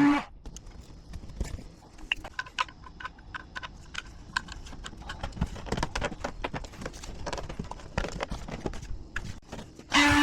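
A power drill's motor whirring stops just after the start and starts again near the end; in between, irregular light clicks and knocks of hardware and the tool being handled.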